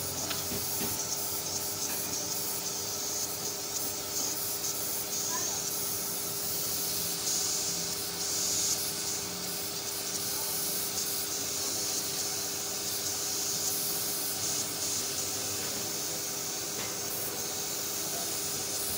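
Compressed-air paint spray gun hissing as it sprays enamel undercoat. The hiss swells and drops as the trigger is pulled and eased, over a steady hum.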